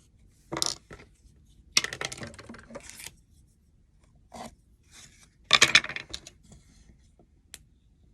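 Small hard objects handled on a work surface: a series of short clatters and scrapes, about seven in all, loudest about two seconds in and again near six seconds.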